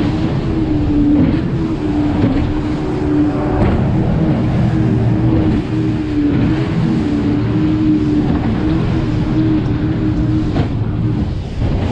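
Speedboat engine running flat out at a steady, slightly wavering pitch, with the hull's rush of water and spray through it.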